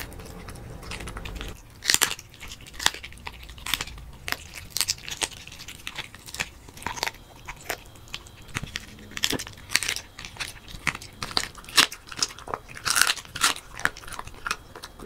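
A corgi gnawing and crunching a raw duck foot, with irregular sharp crunches of bone and cartilage starting about two seconds in.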